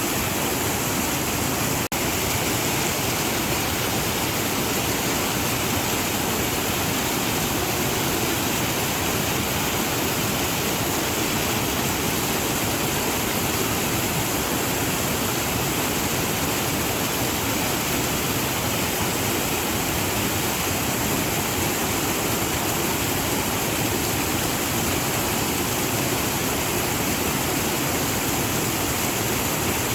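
Waterfall: a steady, unbroken rush of falling water, with a momentary dip about two seconds in.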